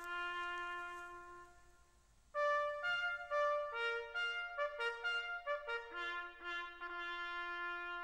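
Solo trumpet playing a slow call. A held note fades out, then after a short pause comes a run of notes that ends on a long held note.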